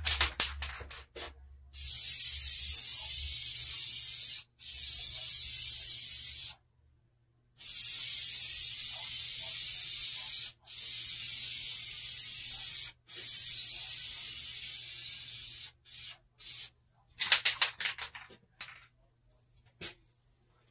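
Aerosol can of vinyl and fabric paint spraying in five long, steady bursts of hiss, each a few seconds long, with short breaks between. At the start and again near the end the can is shaken, its mixing ball rattling rapidly.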